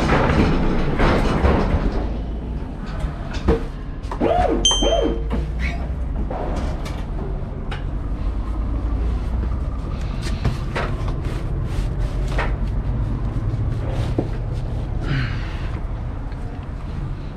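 Electric pallet truck driving over a dock plate into a trailer: loud rattling and clattering over the plate at first, then the drive's steady low hum with scattered clicks, knocks and squeaks. A short high beep sounds about five seconds in.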